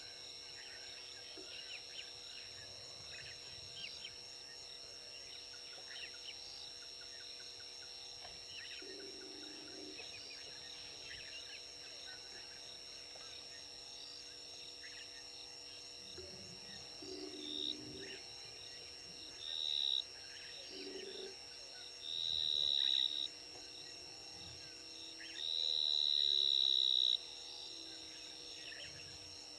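Evening bush chorus at a waterhole: insects droning steadily on high notes, with a few short, low frog calls. A loud, high-pitched insect buzz cuts in four times in the second half, each burst longer than the last, the longest near the end.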